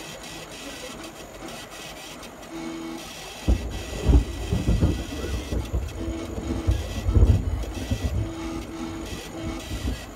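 Stepper motors of a 40 W CO2 laser cutter driving the head around a traced outline, giving short whining tones that start and stop as each move begins and ends. From about three and a half seconds in, a louder irregular low rumble with a few thumps covers it, loudest about four and seven seconds in.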